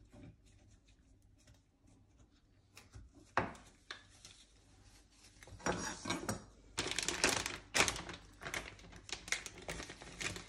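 Hand-held lemon squeezer and a plastic Ziploc bag being handled while fresh lemons are squeezed into the bag: a lone click a few seconds in, then a run of quick crackly clicks and crinkles from about halfway on.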